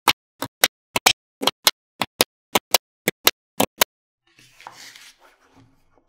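Small magnetic balls clicking as they snap together: a rapid run of sharp clicks in quick pairs, about two pairs a second for four seconds, then a short rustling scrape near the end.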